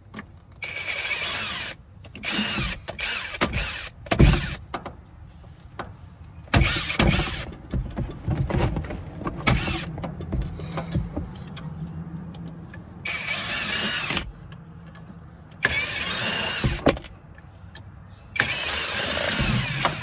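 Cordless drill/driver running in about seven short bursts of a second or so each, backing screws out of a cell-tower antenna assembly. Sharp knocks and clinks of small metal parts come between the bursts.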